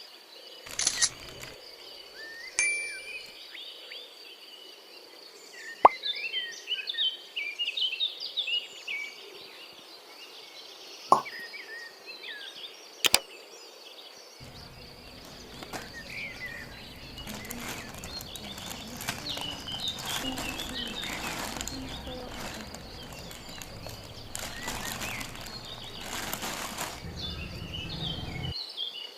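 Small birds chirping in the background, with a few sharp clicks. About halfway through, a steady hissing noise sets in and stops shortly before the end.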